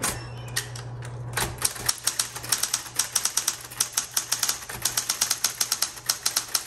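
Smith Corona Coronet Automatic 12 electric typewriter being typed on fast: its motor hums steadily, and about a second and a half in a rapid run of typebar strikes on the platen begins, several a second.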